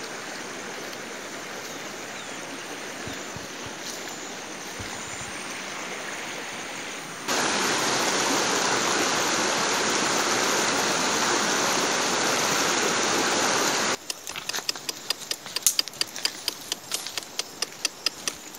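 Steady rushing of a shallow rocky mountain stream, quieter at first and much louder for several seconds in the middle. About fourteen seconds in it gives way to a run of irregular sharp clicks and crackles over a quieter background hiss.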